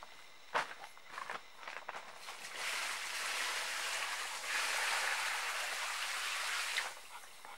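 A bucket of water poured out onto a plastic tarp pool liner: a steady splashing pour of about four seconds, starting a little over two seconds in and heaviest in its second half. It is preceded by a few footsteps and light knocks.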